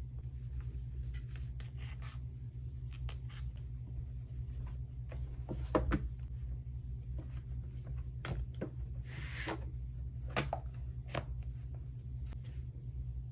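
Light clicks, taps and rustles as a tablet, a keyboard and a folio case are handled and set down on a desk, heard over a steady low hum. The sharpest knock comes about six seconds in, and a short rustle follows near nine seconds.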